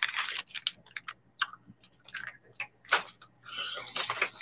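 A crinkly printed wrapper being crumpled and handled, giving short irregular crackles and clicks, the loudest about three seconds in, with a brief rustle near the end.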